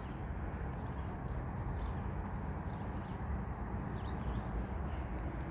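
Distant city traffic as a steady low rumble of background noise, with a few faint high bird chirps about four seconds in.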